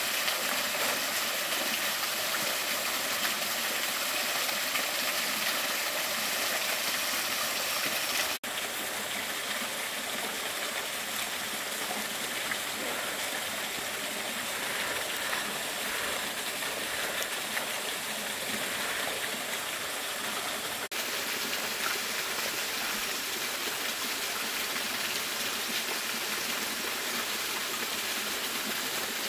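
Steady rushing of stream water, an even noise with no distinct events, breaking off for an instant twice.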